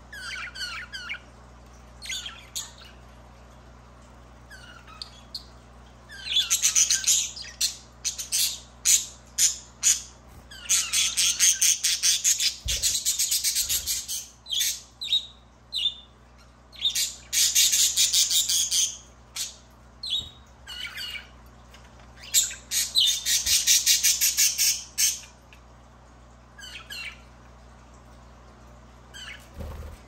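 Pet budgerigars calling: short chirps scattered between four bouts of rapid, pulsing chatter, each lasting one to three seconds.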